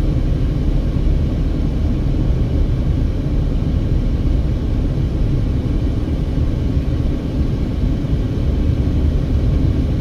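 Steady low rumble of tyres on the road and the engine of a Mercedes-Benz car cruising, heard from inside the cabin.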